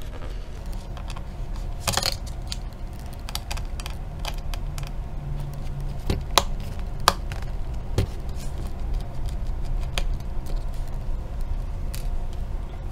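Scattered small metallic clicks and taps from a screwdriver taking the screws out of a laptop LCD panel and from handling the loosened panel, over a faint steady hum.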